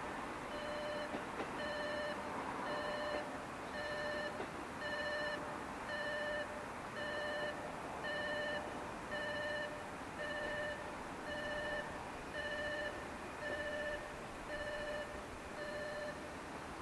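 Railway level-crossing warning bell ringing, an electronic clang repeated evenly about once a second, which stops near the end.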